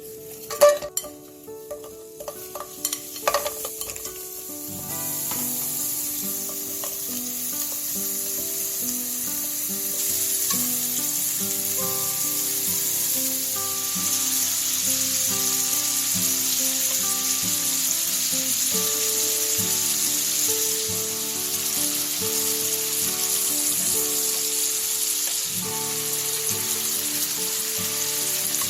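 Frozen pork belly slices sizzling in a hot pan: a steady frying hiss that builds up about five seconds in and holds. A few sharp clacks come in the first few seconds.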